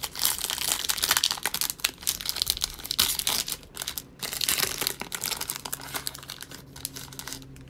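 A foil wrapper on a 2020 Select football card pack being torn open and crinkled by hand. It crackles densely for the first five seconds or so, then settles to softer rustling.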